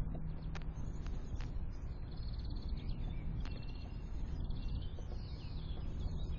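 Small wild birds chirping at a window feeder: scattered short high chips, a few sharp clicks and a brief twittering warble about five seconds in, over a steady low outdoor rumble.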